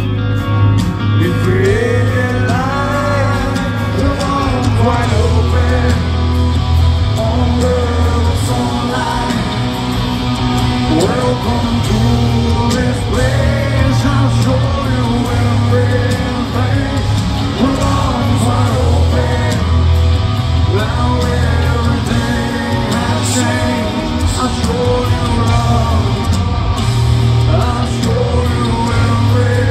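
A rock band playing live in an arena: electric guitars, drums and a heavy, steady bass line, with a singer's melody over it. It is heard from within the audience.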